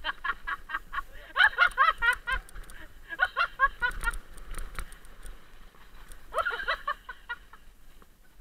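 High-pitched laughter in quick runs of syllables, four bursts with short pauses between.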